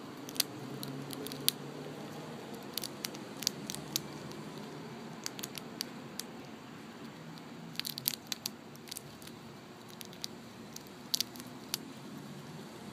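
Eastern chipmunk gnawing a peanut in the shell: irregular clusters of sharp little cracks and clicks from its teeth on the shell, with short quiet pauses between bursts.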